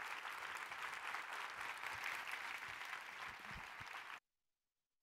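Audience applauding, a dense patter of many hands clapping, which cuts off suddenly about four seconds in.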